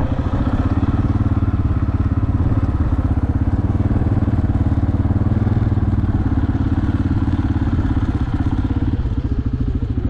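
Small vehicle engine running steadily at constant speed, with a fast, even firing beat.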